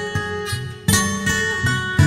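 Background music: soft acoustic guitar, plucked chords ringing and fading, with a new chord struck about a second in.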